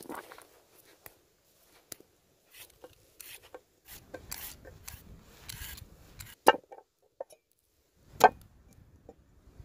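A carrot being peeled: a run of short scraping strokes. These are followed by two sharp knocks on a wooden cutting board, a little under two seconds apart.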